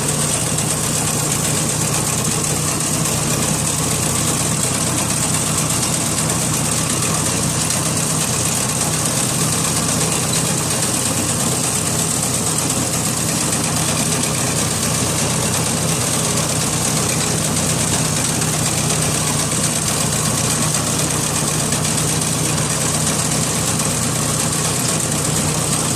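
New Holland 54C Special tractor's diesel engine running at a steady speed under harvesting work, with a steady high hiss over it.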